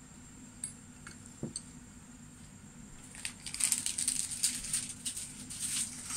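Hot pot broth boiling in a wide pan: a few faint pops at first, then from about three seconds in a busy run of irregular crackling and popping bubbles.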